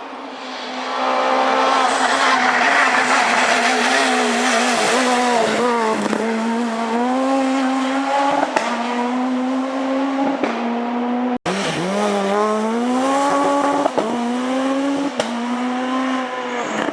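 Renault Clio S1600 rally car's engine at high revs, its pitch repeatedly dropping and climbing again with gearshifts and lifts off the throttle. There is an abrupt cut to another run about eleven seconds in.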